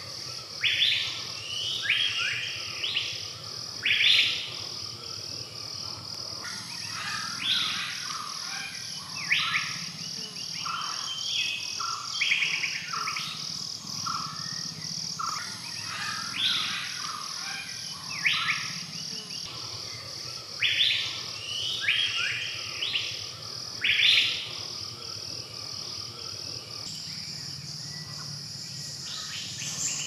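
Forest birdsong: birds calling over and over in short sweeping notes every second or two, over a steady high insect trill. The bird calls thin out near the end.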